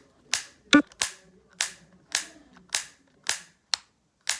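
The spring-loaded clip gate of a Bop It carabiner keychain toy being snapped open and shut over and over: a regular series of sharp snaps, about two a second, with a brief pitched squeak about a second in.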